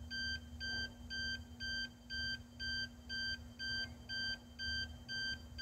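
PB-9250J-SA power backup unit's alarm beeping, short high beeps about twice a second. It signals that its DC input power has been cut and it is running on stored capacitor energy. A faint steady low hum underneath.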